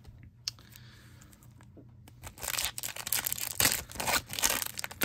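A foil Topps Chrome Update card pack being torn open and crinkled by hand, a dense crackling run starting about two seconds in after a quiet start with one faint click.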